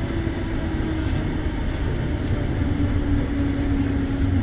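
Running noise of a 1924 vintage tram heard from inside the car: a steady rumble of the wheels on the rails with a low hum that drifts slowly lower in pitch.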